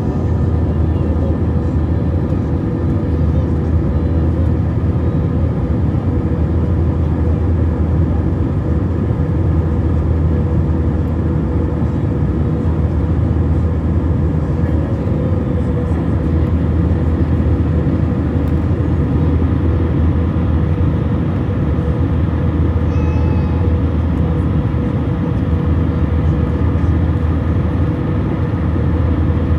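Airbus A321 jet engines and airflow making a steady, loud drone: a deep hum with a thin steady whine above it, unchanging throughout.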